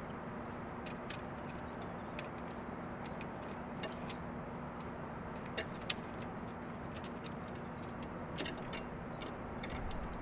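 Scattered light clicks and taps of the antenna's aluminium boom sections and plastic element clips being handled and hooked together, over a steady background hum and hiss.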